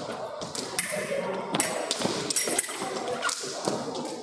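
Fencers' footwork on the piste: an irregular run of sharp taps and thuds as shoes land and stamp during advances and retreats.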